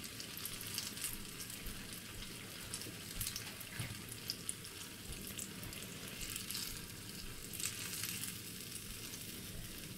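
Banana paniyaram batter balls deep-frying in a saucepan of hot oil: a steady sizzle with fine crackling and a few small ticks.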